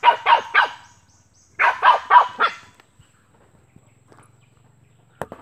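Small dog barking in quick runs of high yaps: three at the start and four more about a second and a half later. A single sharp click comes near the end.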